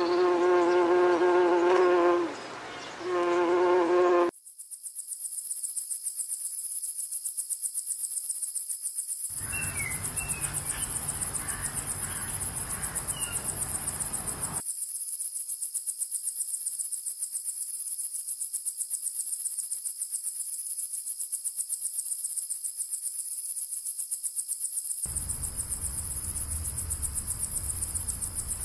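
A bee buzzing in a steady pitched drone that breaks off briefly partway through. About four seconds in, a continuous, rapidly pulsing high chirring of insects like crickets takes over and runs on, joined for a while by outdoor background noise with a few faint chirps, and near the end by a low rumble.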